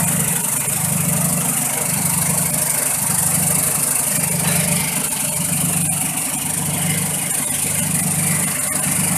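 Pepper sorting machine running: a steady low mechanical hum that swells and fades about once a second, under a constant rattling hiss of peppercorns pouring over the sieve screens and metal chutes.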